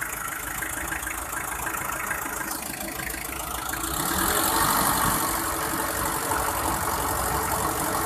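Hyundai Porter's four-cylinder diesel engine idling steadily just after being started, freshly refilled with oil after an oil and filter change. It gets a little louder from about four seconds in.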